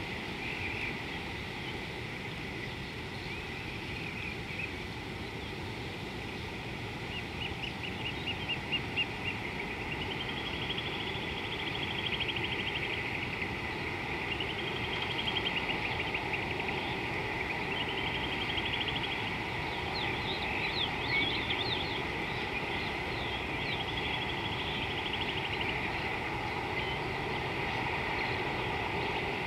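Birds calling in a series of rapid trilling, rattling phrases, each a second or two long and repeated several times, over a steady low rumble of outdoor background noise.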